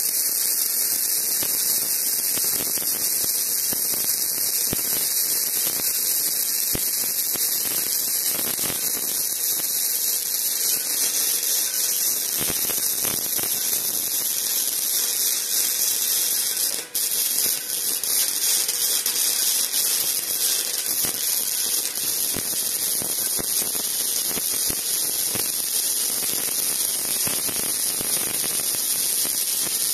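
Parkside PIFDS 120 B2 flux-core wire welder arc welding at dial setting 2, the arc crackling and hissing continuously as the bead is laid. The sound drops out for an instant about 17 seconds in.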